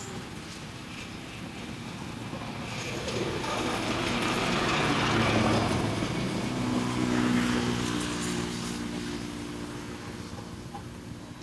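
A motor vehicle passing by, growing louder to a peak about halfway through, then fading away.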